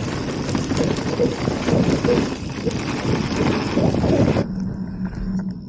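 Wind buffeting the microphone over the rattle and tyre noise of a mountain bike riding a rough dirt trail. It cuts off abruptly about four seconds in, leaving only a faint steady low hum.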